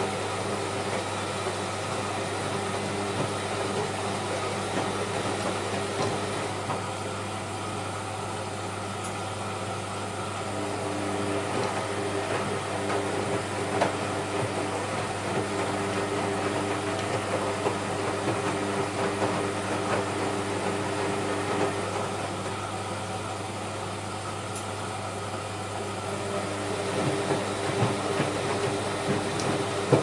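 AEG Lavamat Protex L72475FL front-loading washing machine tumbling a wet load. The drum motor hums steadily under the sloshing and soft thudding of laundry and water in the turning drum. The sound grows louder and quieter in turns as the drum slows and turns again.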